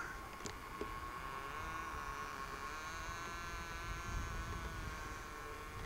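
A steady high-pitched hum, with a wavering droning tone above it from about a second and a half in that stops near the end.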